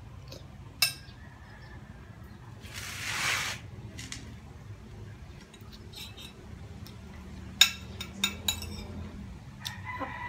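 Metal fork clinking against a plate a few times, most of the clinks close together near the end, with a short rush of noise about three seconds in.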